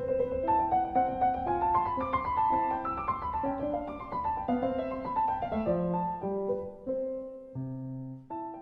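Background piano music: a gentle line of single notes that climbs over the first couple of seconds and drifts back down.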